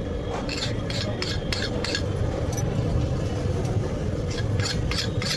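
Blacksmith's hand hammer striking metal in quick series, about three to four blows a second, in a run during the first two seconds and another near the end, over a steady low rumble.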